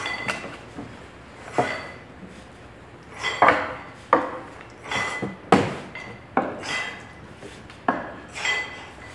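Gym weights clanking: about ten metal knocks and clinks at irregular intervals, some with a short ringing note.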